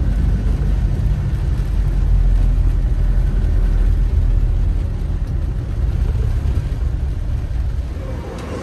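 Car driving on the road: a steady low rumble of engine and tyres under an even hiss, easing off near the end.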